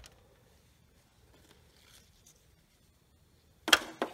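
Faint clicks of small carburetor parts being handled on a paper towel, then near the end a brief, loud rustling scrape with a couple of clicks as a headlamp is picked up.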